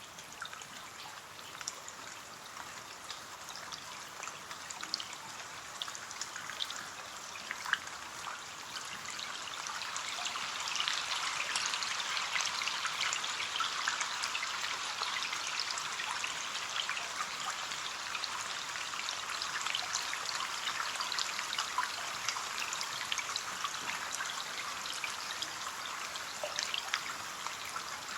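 Rain pattering on a window: a steady hiss of drops with many small taps, growing heavier about a third of the way in.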